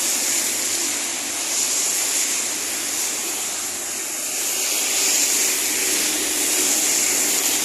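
Steady hiss of rain and of vehicle tyres on a wet road, swelling a little in the second half as traffic passes.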